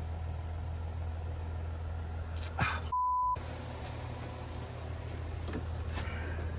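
BMW E39 engine idling with a steady low hum, checked for air pressure at a port during a test for a blocked EGR passageway. About three seconds in, a short single-pitch edit bleep cuts out all other sound for under half a second.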